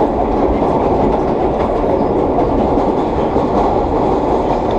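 1930s R1/9 subway cars running at speed in a tunnel: a loud, steady rumble of wheels on rail and traction motors, with no pauses.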